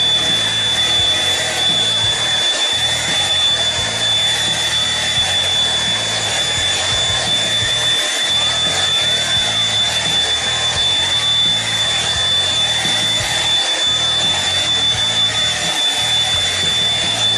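Eureka stick vacuum running steadily, a high constant whine from its motor over a rushing hiss of air.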